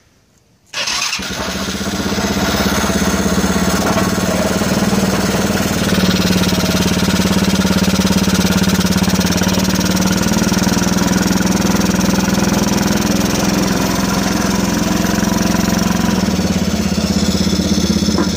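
Carbureted 107cc Honda four-wheeler single-cylinder engine, preheated and burning off-road diesel through its spark plug, catches about a second in and keeps running steadily.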